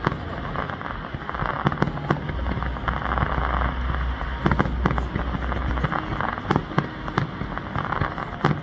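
Aerial fireworks display: shells bursting in quick succession, sharp bangs every fraction of a second over a continuous crackle of sparks, with a low rumble through the middle.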